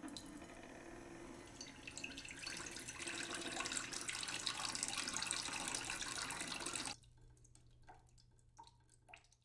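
Water pouring in a stream into a drinking glass, growing louder over the first few seconds and stopping suddenly about seven seconds in, followed by a few faint drips.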